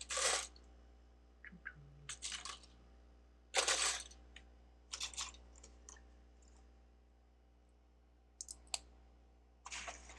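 Plastic Lego bricks clicking and clattering as pieces are picked through and set down, in several short bursts with pauses between.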